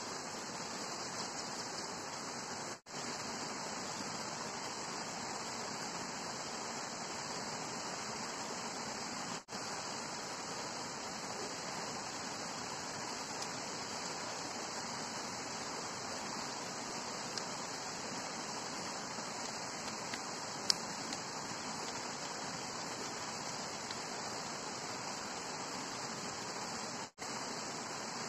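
A steady, even hiss with no distinct events, cutting out briefly three times.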